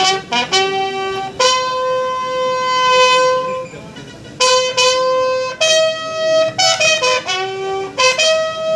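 A brass instrument playing a slow melody of long held notes, with a few quick short notes between them; the longest note lasts over two seconds.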